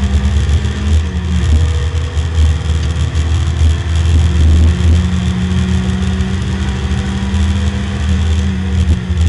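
Porsche 924 race car's four-cylinder engine pulling hard as the car accelerates along a straight, heard loud inside the stripped cabin.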